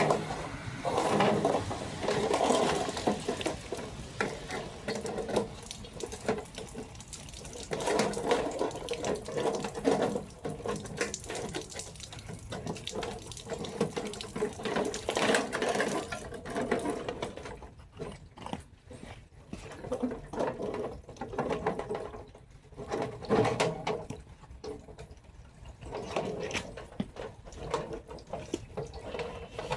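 Running, splashing water in uneven surges, with scattered clicks and knocks throughout.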